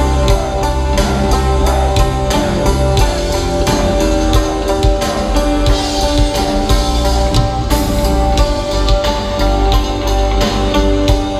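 Live metal band playing loud, heard from within the crowd: electric guitars over a steady drum-kit beat.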